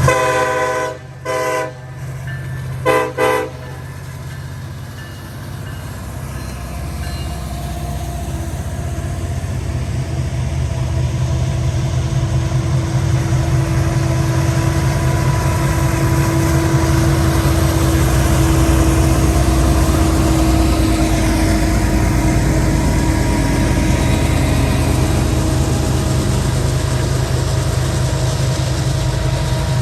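Union Pacific SD70ACe's Nathan Airchime K5LLA-R1L five-chime horn sounding three blasts in the first few seconds: a long one, a short one and a slightly longer one. Then the locomotive's diesel and the rumble of the train's cars grow steadily louder as it draws near, staying loud from about halfway on.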